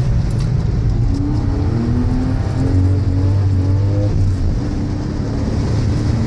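Porsche 911 (997) Carrera 4S flat-six engine running on the move under a loud low rumble, its note rising in short steps through the first few seconds.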